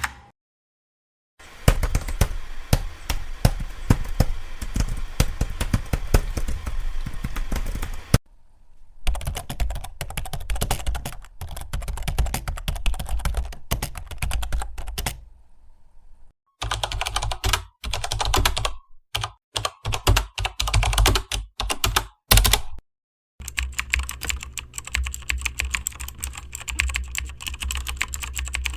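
Fast typing on a computer keyboard: a dense stream of key clicks in several runs, broken by a few abrupt silent gaps.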